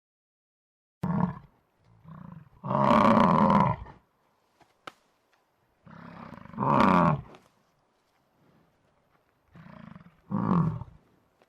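A large animal's roaring calls, repeated about four times with pauses of a few seconds between them; the longest call lasts about a second.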